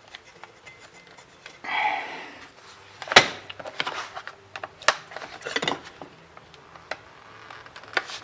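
A prying tool scraping and clicking along the seam of a tablet's plastic back cover as the case is worked open, with a sharp click about three seconds in.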